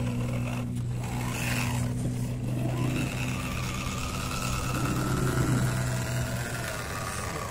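Mini RC crawler (MN86KS) driving, its small electric motor and gears whining faintly, with the whine wavering as the throttle changes, over a steady low hum.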